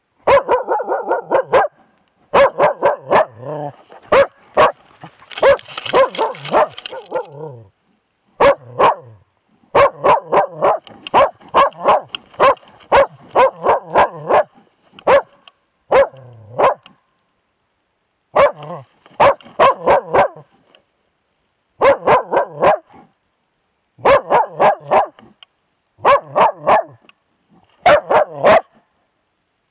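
A young moose-hunting dog barking in quick runs of several barks a second with short pauses between runs, baying at a moose cow and calf it is holding at bay. Very close and loud, heard from a camera strapped to the dog itself.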